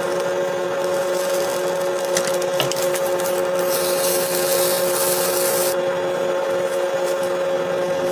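Electric kitchen appliance motor running steadily, with a constant whine.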